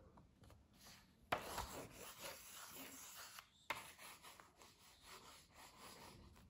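Faint scratching of a coloured pencil on paper as a child colours in a colouring book, in two stretches of scribbling that start about a second in, with a brief pause in the middle.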